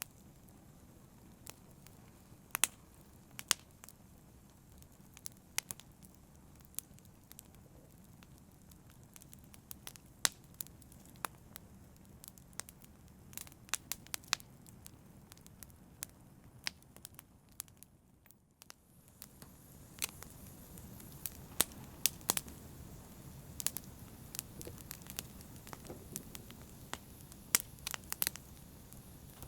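Wood fire crackling, with frequent sharp pops and snaps over a soft steady hiss. About eighteen seconds in the sound briefly drops away, then comes back with a slightly fuller hiss.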